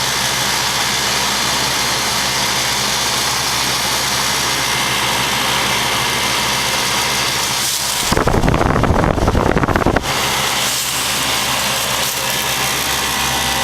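1989 Lennox heat pump's outdoor unit running in cool mode, a steady hum of compressor and condenser fan. About eight seconds in, a loud rumbling burst covers it for about two seconds.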